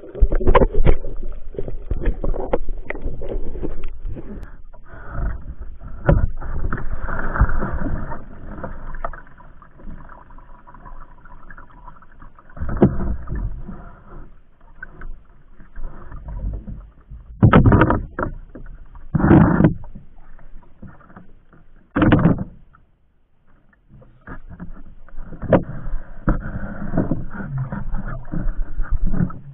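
Water sloshing and splashing around a small wooden outrigger canoe, with knocks of handling against the hull. Three loud thumps come a little past the middle.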